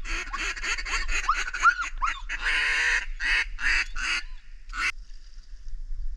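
A rapid series of loud, raspy duck quacks, followed by a few slower ones, the last about five seconds in.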